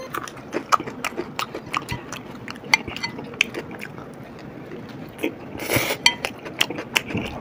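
People chewing and biting into soft chicken tacos: irregular wet mouth clicks and smacks, with a brief louder burst of noise about five and a half seconds in.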